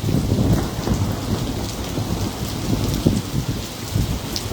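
Thunderstorm: heavy rain falling, with a steady low rumble of thunder underneath.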